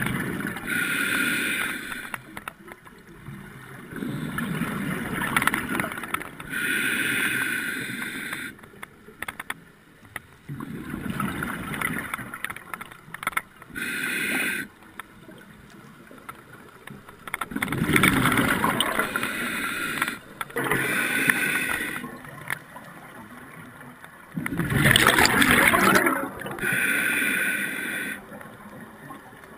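Scuba regulator breathing: a hissing inhale through the demand valve, then a louder rush of exhaled bubbles. The cycle repeats about every six to seven seconds.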